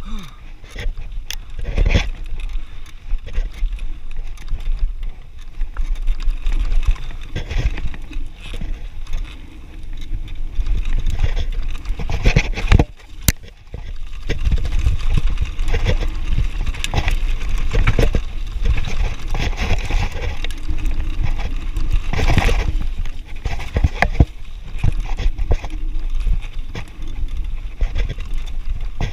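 Mountain bike descending a rough gravel trail: tyres rolling and crunching over loose stones, with frequent knocks and rattles from the bike over bumps. Wind rumbles steadily on the action camera's microphone.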